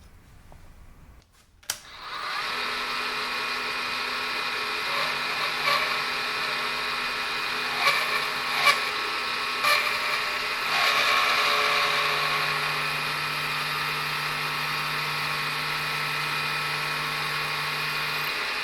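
Aciera F1 milling machine switched on with a click just before 2 s, then the spindle running steadily with a constant whine while the end mill cuts a step in the watch dial. Several sharp scraping spikes in the first part of the cut make it sound rough, which the machinist calls not the best.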